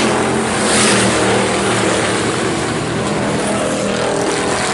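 A pack of IMCA Hobby Stock race cars running on the dirt track, several engines heard together in a loud, steady drone that eases slightly toward the end.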